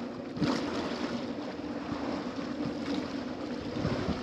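Small waves washing and splashing against stone steps at the water's edge, with a surge about half a second in, over wind rumbling on the microphone and a steady low hum.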